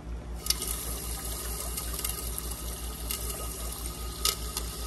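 Water from a garden hose pouring into a glass aquarium to top it up during a water change: a steady splashing gush that swells about half a second in, with a few sharp clicks.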